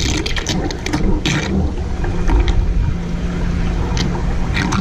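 Bixpy Jet electric jet motor running in reverse in a tub of water: a steady low motor hum under water churning, with sharp splashes now and then as the jet sucks air down into the water as bubbles.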